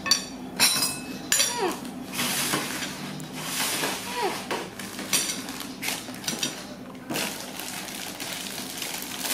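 Clinks of ceramic bowls and a spoon on a metal tabletop and the crinkle of a plastic instant-noodle packet being handled and torn open, with a few short squeaks that fall in pitch from a baby monkey, about a second and a half in and twice around four seconds in.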